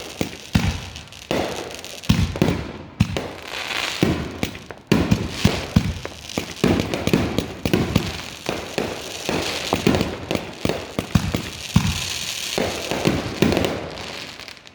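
Consumer fireworks going off in a rapid barrage: many sharp bangs one after another, with a crackling hiss between them.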